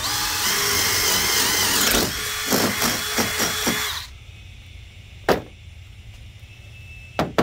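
DeWalt cordless drill driving a spade bit through a 1x4 wooden board: the motor whine rises as it spins up, the cutting noise pulses during the last couple of seconds, and it stops about four seconds in. A sharp knock follows about a second later, and another near the end.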